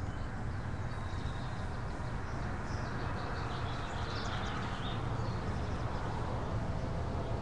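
Outdoor ambience: a steady low rumble of background noise with faint bird chirps from about one to five seconds in.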